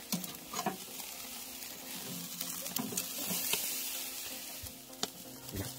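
Marinated spatchcock chicken sizzling over hot charcoal on a grill grate as it is turned with metal tongs. A steady hiss swells about halfway through, with a few sharp clicks of the tongs against the grate near the start and again near the end.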